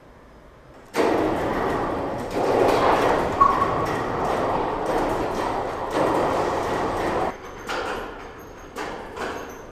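Electric overhead crane running as it carries a suspended loader cab: a steady mechanical run that starts about a second in and stops after about seven seconds, with a brief squeak about three seconds in. A few light knocks and clanks follow once it stops.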